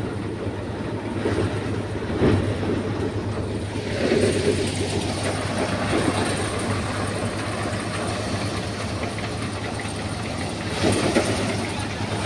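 Tractor-driven Panesar paddy thresher running steadily, a constant low hum under a dense rattle and whoosh as rice bundles are fed in. The hiss and rattle grow stronger about four seconds in.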